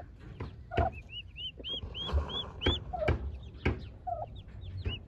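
Young turkey poults peeping, a run of short, high chirps about twice a second. Lower clucking calls and several sharp, irregular knocks come in between.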